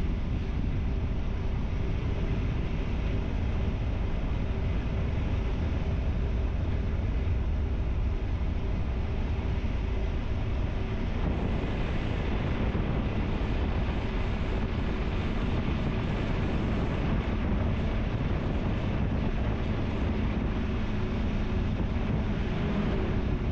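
Motorcycle riding at road speed: steady wind rush on the microphone with the engine's hum underneath. The engine note shifts about halfway through.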